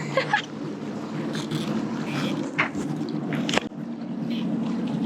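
Boat engine running steadily at idle, a constant low hum, with a few sharp knocks or splashes and a brief voice near the start.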